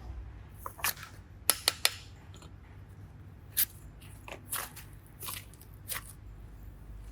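Hands squishing and pressing slime, giving a scattering of short sticky clicks and crackles. The loudest is a quick run of three sharp clicks about a second and a half in, over a low steady hum.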